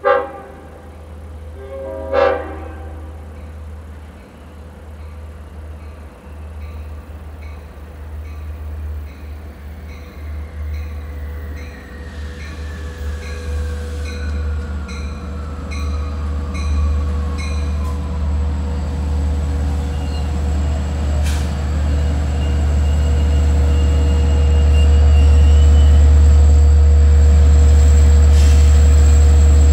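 Two short horn blasts from a Long Island Rail Road DE30AC diesel locomotive, about two seconds apart. Then the locomotive's rumble grows steadily louder as it approaches and comes alongside.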